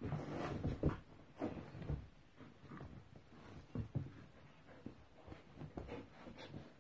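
Border collie scuffling with a woven rug on carpet: rustling fabric and soft, irregular thumps of paws and body, busiest in the first second or so.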